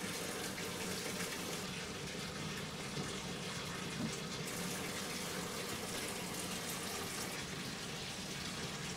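Bathtub tap running into the tub, a steady splashing hiss echoing off bare tile, picked up well off axis by a Shure Beta 58A dynamic microphone.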